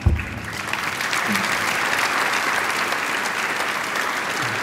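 Audience applauding in a large hall, starting suddenly with a brief low thump and holding steady throughout.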